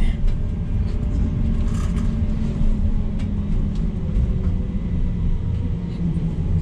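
Low-floor tram running along its track, heard from inside the car: a steady low rumble of wheels and running gear with a faint steady whine above it and a few light clicks.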